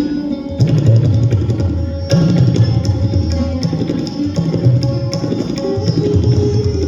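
Tabla playing a fast, dense pattern. Deep, ringing strokes on the bayan bass drum swell and bend in pitch every second or so, over a sustained melodic note.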